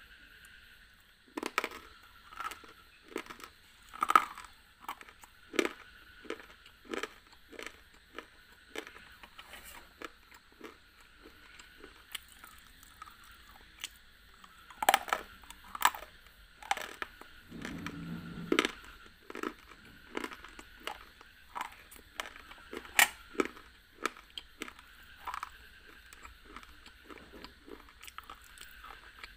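Close-miked biting and chewing of hard, chalk-like white blocks: an irregular string of sharp, dry crunches and snaps, with softer chewing between them.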